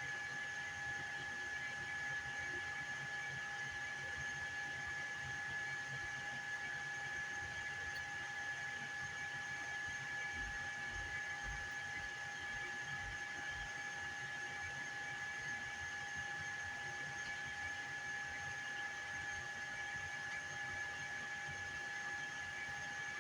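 Steady whir of a 3D printer's cooling fans, a constant high whine over an even hiss.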